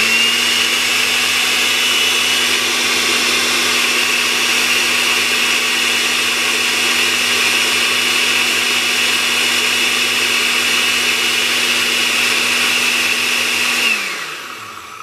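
Countertop blender motor running steadily with a high whine, blending cilantro leaves and stems with oil into a thickening green paste. Near the end it is switched off and the whine falls away as the motor spins down.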